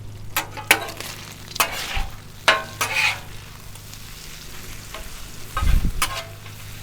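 Bacon frying on a Blackstone flat-top griddle with a steady sizzle, broken by several short scrapes and taps on the griddle top as it is stirred and turned, and a low thud a little before the end.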